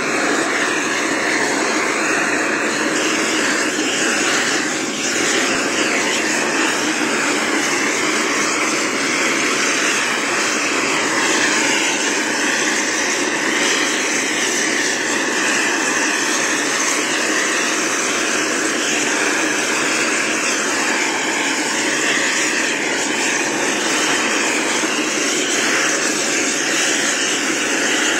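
Long-handled propane torch burning with its flame held on charcoal briquettes to light them: a loud, steady rushing noise.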